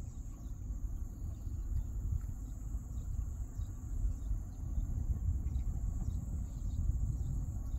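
Wind rumbling on the microphone over a steady high-pitched insect drone, with a few faint short chirps.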